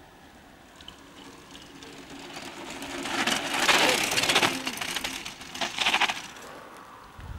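Mountain bike tyres crunching over a dirt and gravel track as the bike rides past close by. The sound swells to its loudest about four seconds in, with a second, shorter burst of crunching about two seconds later.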